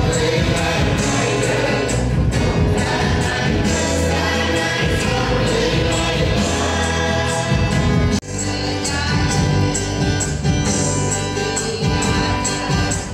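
Church choir singing a hymn with instrumental accompaniment and a steady beat. The sound breaks off abruptly about eight seconds in and picks up again.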